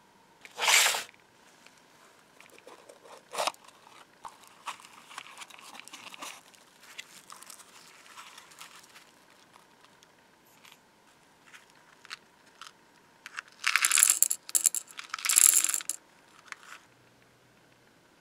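Small brass eyelets poured from a cardboard box into the metal hopper of an antique Bates automatic eyeleter, in two short jingling rushes near the end. Before that come a sharp clatter about a second in and scattered light clicks and rustles as the box is handled.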